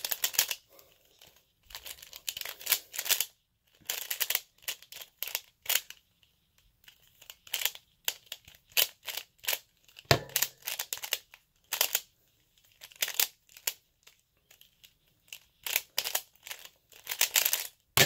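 A plastic Pyraminx puzzle being turned rapidly by hand: runs of quick plastic clicks and rattles with short pauses between them.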